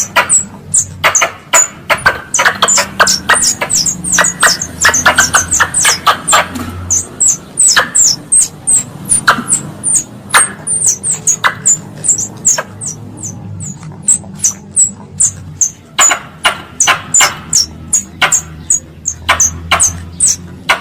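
Wild squirrel (tupai) lure call: a rapid, continuing chatter of short, sharp, high chips, several a second, each dropping quickly in pitch, mixed with sharp clicks.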